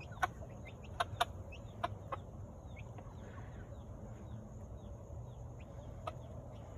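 Chickens with chicks: many chicks peeping in short, high, falling chirps, several a second, with a few sharp clicks in the first two seconds and one more about six seconds in.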